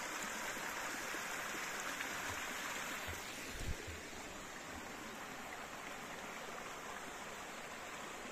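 Hot spring water running over rocks in a small creek, a steady even rushing that gets a little quieter about three seconds in, with a few soft low thumps around then.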